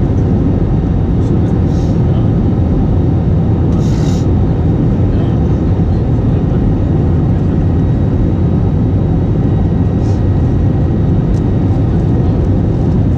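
Cabin noise inside an Airbus A320-family airliner on final approach to land: a loud, even low rumble of engines and rushing air, with a brief faint hiss about four seconds in and another about ten seconds in.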